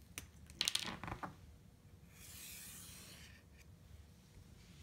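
Faint handling of an acrylic quilting ruler and fabric on a cutting mat: a few light taps in the first second, then a soft rub lasting about a second, about two seconds in.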